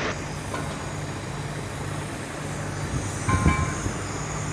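Truck engine idling steadily, with a single metallic clink and thud a little over three seconds in.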